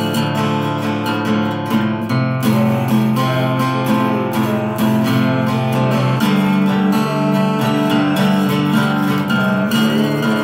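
Small-bodied acoustic guitar strummed by hand, playing steady chords with regular strokes.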